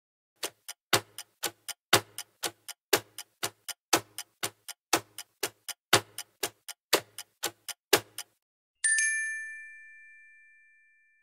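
Countdown-timer sound effect: a clock ticking about four times a second, louder on each full second, for about eight seconds, then a single bell ding that rings on and slowly fades, marking time up.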